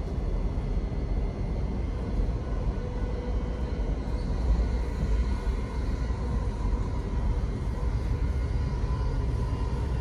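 Steady rumble of a moving passenger train heard from inside the carriage, with a faint steady whine over it.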